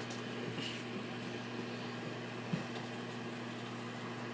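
Microwave oven running: a steady low electrical hum, with a faint knock about halfway through.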